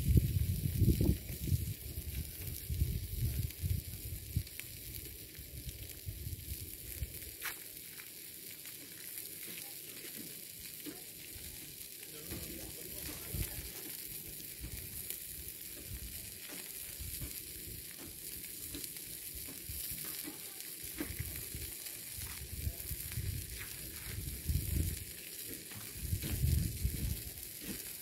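Steady high hiss and sizzle from a pan on a portable gas camping stove. Wind rumbles on the microphone in gusts, strongest in the first few seconds and again near the end.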